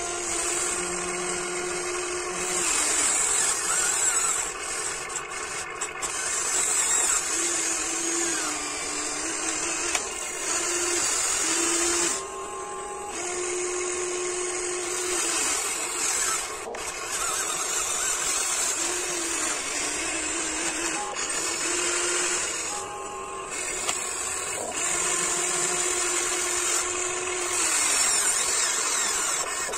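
Small electric motors and gearboxes of a Huina 1594 RC toy excavator whining as its arm and bucket are worked. The whine starts and stops in spells of a few seconds, with short pauses. Background music plays alongside.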